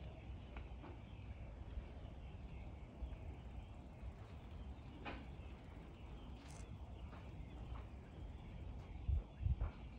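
Outdoor ambience: a steady low rumble with faint bird calls, and a few louder low thumps near the end.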